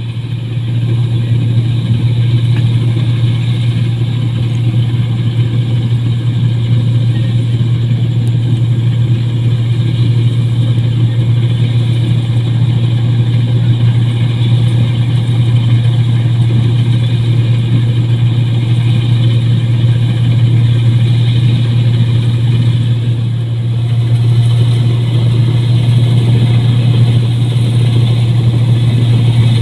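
Rice combine harvester running steadily under load as it cuts paddy, a loud constant engine hum with a strong low drone, easing off briefly about three-quarters of the way through before picking back up.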